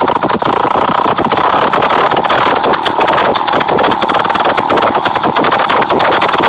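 Moped engine running with its exhaust pipe removed: a loud, rapid, steady crackle of unmuffled firing pulses.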